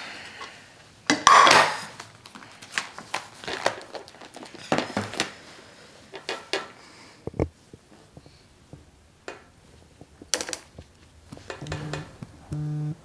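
Clinks and knocks of a mug, plate and glass handled on a wooden table, with some rustling. Near the end a phone vibrates against the tabletop in short repeated buzzes.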